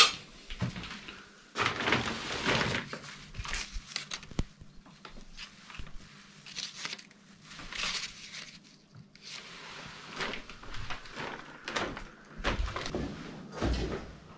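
Irregular handling and walking noises in an empty, derelict room: scattered crunches, knocks and rustles, with paper being handled.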